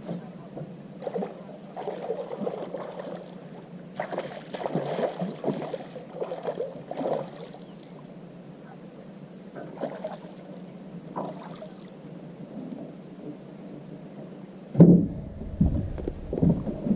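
Sounds aboard a fishing boat: a steady low hum under irregular splashing and rustling, then a run of loud heavy knocks and thumps near the end.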